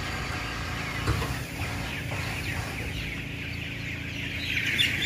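A large flock of 16-day-old broiler chickens peeping and chirping all together in a continuous chorus, over a steady low hum.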